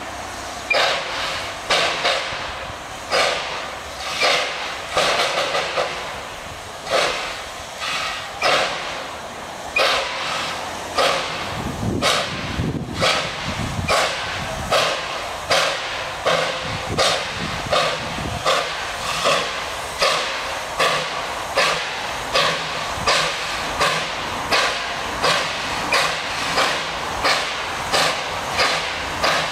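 Narrow-gauge 2-6-2T steam tank locomotive 12A working hard to restart a loaded train on a steep 1 in 30 grade after stalling on slippery rails. Its loud exhaust beats come slow and uneven at first, about one a second, then quicken into a steady, faster rhythm as it gets going, over a constant hiss of steam from its cylinders.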